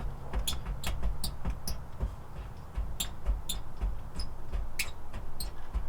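Loose headlight assembly clicking and knocking as it is shaken by hand: a string of irregular sharp clicks, about two or three a second, over dull low thumps. The rattle comes from the broken headlight brackets.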